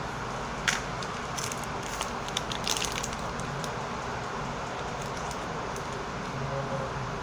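Paper-and-plastic syringe wrapper crinkling and tearing as gloved hands peel it open, a cluster of sharp crackles in the first three seconds and a few lighter ticks after, over a steady background hiss.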